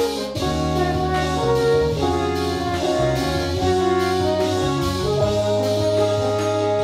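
Ensemble of eight French horns playing held chords, with electric bass and a drum kit keeping time underneath.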